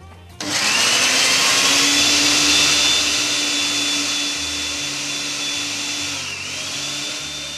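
Countertop blender switched on: the motor spins up with a rising whine about half a second in, then runs loud and steady, puréeing cooked apples. Near the end its pitch dips briefly and recovers.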